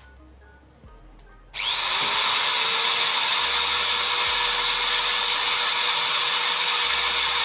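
Corded electric drill starting about a second and a half in, its motor whine rising quickly to a steady high pitch as the bit bores a hole through a PVC pipe. Before it starts there are only a few faint ticks.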